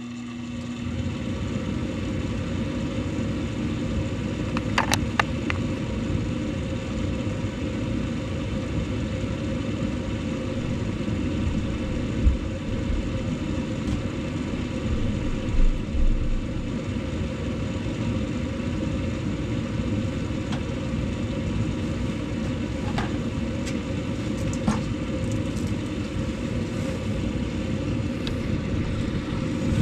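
Gas furnace running with a steady low rumble and hum, with a few faint clicks along the way.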